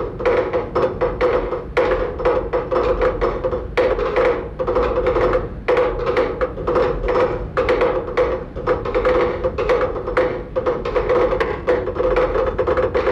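Percussive music: rapid, uneven wood-block-like clicks and knocks over a steady held mid tone that drops out briefly a few times.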